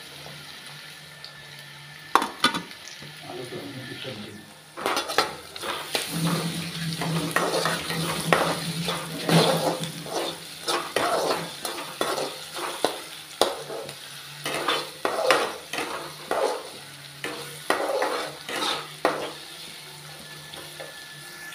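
Onions, green chillies and ginger-garlic paste sizzling in oil in a metal kadai while a slotted steel spatula stirs and scrapes the pan. The scraping strokes start about five seconds in and come about once or twice a second until near the end.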